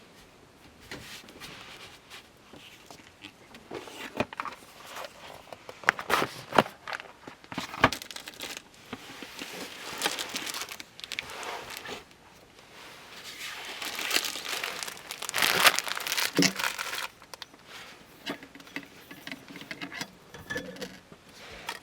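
Rustling and crinkling handling noises in a small enclosed space, coming in irregular bouts with a few sharp clicks and knocks.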